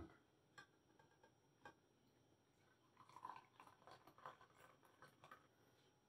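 Faint sound of brewed coffee being poured from a cafetière (French press) into a glass, starting about halfway through, after a couple of light clicks.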